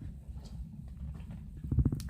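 Slime being squished and worked by hands, with a low squelching sound and small sticky pops, and a quick run of pops near the end.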